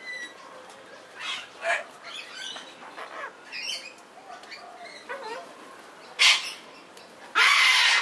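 Parrots calling: a run of short chirps and chatter, a sharp call about six seconds in, and a loud harsh squawk near the end.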